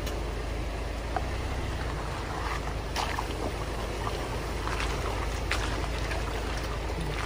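Lifted Jeep Wrangler JL Rubicon on 37-inch tyres crawling over a rocky trail: a steady low engine and tyre rumble, with scattered sharp clicks and knocks of rocks under the tyres.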